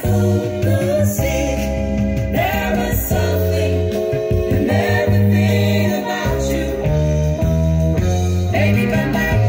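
A pop song with a singing voice over a bass line, played back through an NAD 3030 integrated amplifier and AAD C-260 loudspeakers.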